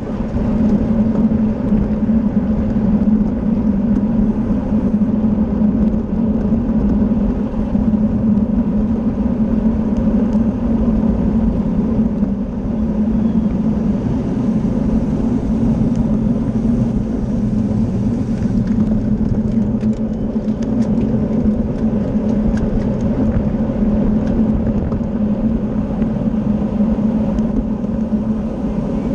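Steady wind rush over the microphone and humming road and drivetrain noise from a racing bicycle at speed, with a scatter of faint clicks about two-thirds of the way through.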